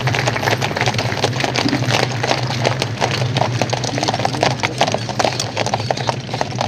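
Hooves of several carriage horses clip-clopping in a dense, irregular patter on a hard paved parade ground as a horse-drawn carriage passes, over a steady low hum.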